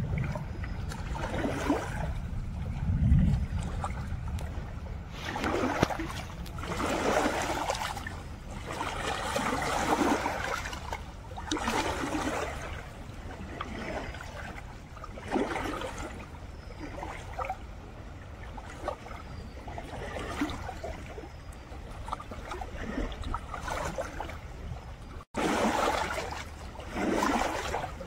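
Small river waves lapping and washing against a rocky bank, swelling and fading every couple of seconds. Wind gusts buffet the microphone early on.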